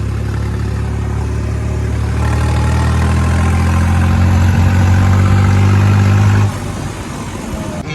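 Tractor diesel engine running steadily. It grows louder from about two seconds in, then drops back suddenly near the end.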